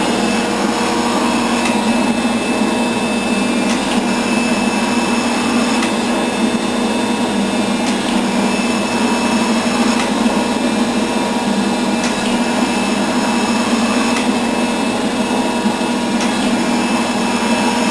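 Rockford 24-inch hydraulic shaper running a long planing cut across a milling vise: a loud, steady machine hum from the hydraulic drive, with a few faint ticks.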